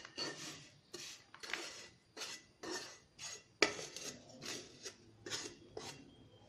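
Wooden spatula scraping crumbly roasted semolina-and-sugar mixture across a nonstick kadai and onto a plate, in a string of short scrapes about two a second.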